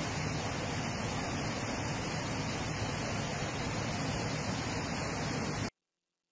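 Floodwater torrent rushing through a town street: a steady, even rushing noise that cuts off abruptly near the end.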